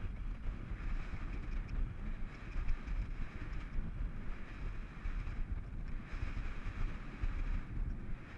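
Wind buffeting the microphone of a rider-worn camera at a cross-country gallop: a steady, heavy low rumble with an airy hiss above it.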